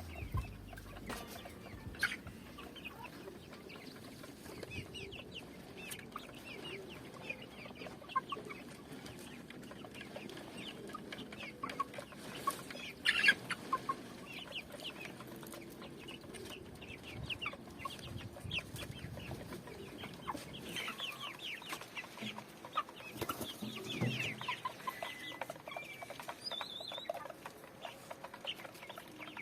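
A flock of chickens clucking and chirping, many short calls overlapping throughout, with a few louder knocks or scuffs partway through.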